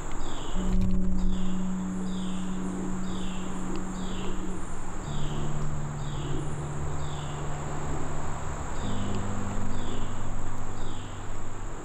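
Woodland insects: a steady high buzz and a short falling chirp repeated about every two-thirds of a second. Under them run low held music notes that change pitch every few seconds.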